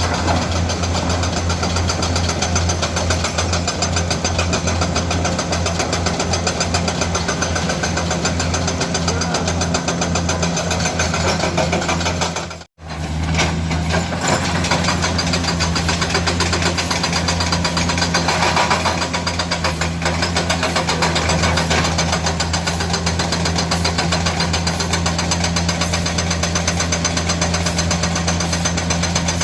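Komatsu PC200 excavator's diesel engine running steadily with a fast, even pulsing. The sound cuts out abruptly for a moment about halfway through, then resumes.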